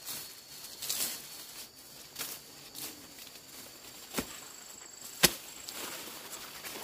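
A blade chopping into a banana plant: a few short, sharp strikes among rustling, the two clearest about a second apart in the second half, the later one the loudest. A faint, steady high-pitched tone runs underneath.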